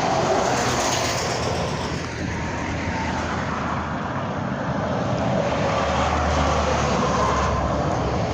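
Highway traffic passing at speed: a steady rush of truck engines and tyre noise, with a low engine hum growing about six seconds in.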